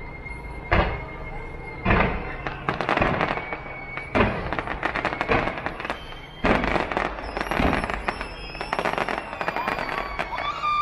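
Aerial fireworks going off: several sharp bangs, each followed by dense crackling from the bursting shells. Thin, steady whistling tones sound underneath.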